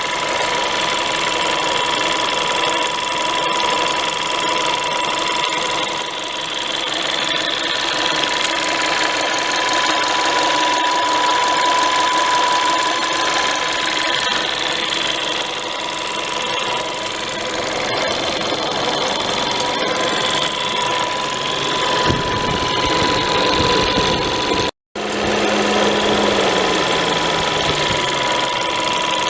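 VW Polo 1.2 TSI 66 kW four-cylinder turbocharged petrol engine running with a rattling noise, the rattle it makes when cold. The sound drops out briefly once, near the end.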